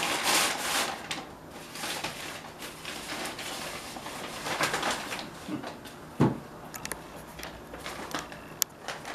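Rustling of gift wrapping being handled and opened, in uneven bursts, with a single thump about six seconds in and a few small clicks near the end.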